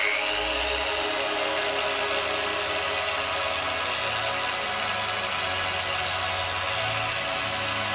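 Dual-action polisher running on the car's paint. It spins up with a rising whine over the first second, then runs at a steady whir.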